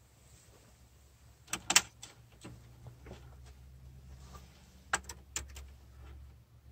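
Sharp clicks and taps from hands working the thread through a Baby Lock Imagine serger's plastic thread guides: a cluster about one and a half seconds in, the loudest, and a few more around five seconds in, over a faint low hum.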